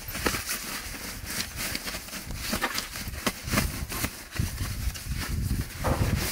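Rustling, crinkling and light knocks of bedding and gear being handled inside a car: a busy run of irregular sharp clicks and crackles, with duller thumps from about halfway through.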